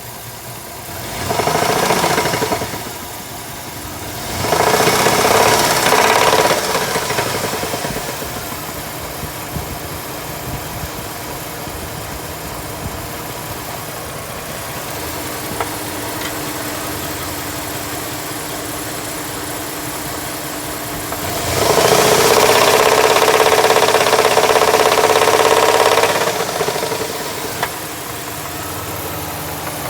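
2003 Jeep Liberty's 3.7-litre V6 running with a knock that the owner takes for a rod knock. It idles and is revved briefly three times: near the start, a few seconds later, and again about two-thirds of the way through.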